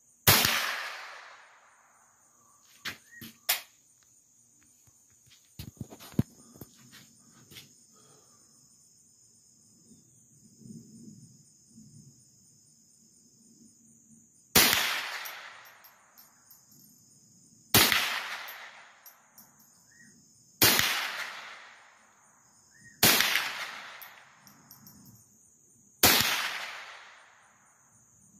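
Remington .22 rifle fired six times: one shot at the start, then after a long pause five more about three seconds apart. Each sharp crack dies away in an echo over a second or so. A few sharp clicks come a few seconds in, all over a steady high insect buzz.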